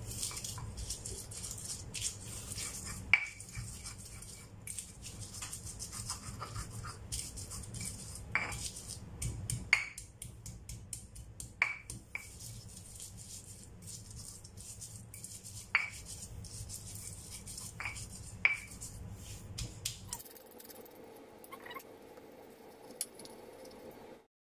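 Stone pestle grinding chilli, garlic and shallot spice paste in a stone mortar (Indonesian ulekan and cobek): a wet scraping rub with about seven sharp stone-on-stone knocks. About 20 s in the grinding stops and a faint steady hum is left.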